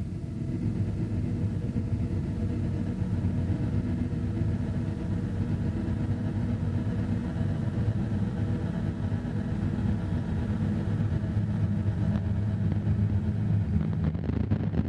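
Harsh noise drone: ambient electronic tracks corrupted through a chain of effects pedals and a Boss RC-505 looper, making a steady, dense, deep wall of distorted sound with a hiss above it. Near the end the top of the hiss falls away.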